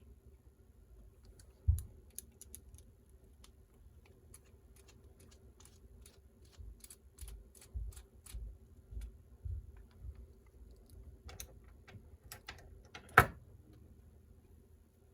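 Small hand tools and tiny screws clicking and tapping against the plastic parts of a micro RC crawler as its drive shafts are unscrewed: scattered light clicks, a low thump about two seconds in, and a sharper knock near the end.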